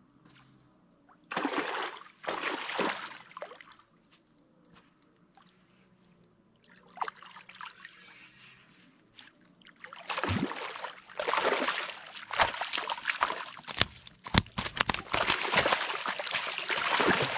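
A large hooked fish thrashing and splashing at the surface in shallow water at the edge of the bank. A short burst of splashing comes about two seconds in, then, after a quieter stretch, a longer run of heavy splashes fills the last seven seconds.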